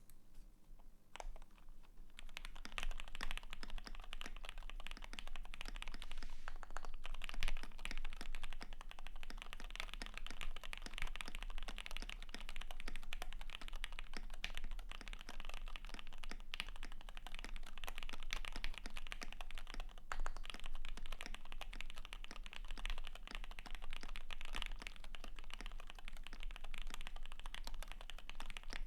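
Fast, continuous typing on a custom mechanical keyboard with lubed and filmed Jwick Black linear switches, a polycarbonate plate and PBT keycaps. A single keystroke comes about a second in, and dense typing starts a moment later.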